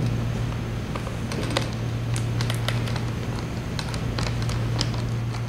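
Small hand screwdriver turning a screw into the rivet that joins a plastic kyphosis arm to a back brace, giving irregular light clicks and ticks. A steady low hum runs underneath.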